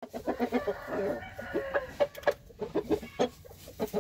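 Thai rooster clucking in a quick run of short calls, with a longer drawn-out call about a second in.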